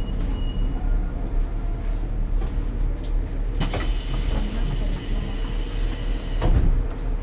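Diesel railcar standing with its DMF14HZ engine idling in a steady low drone. About three and a half seconds in, compressed air hisses for about three seconds and ends in a sharp clunk, as the car's air-operated doors work.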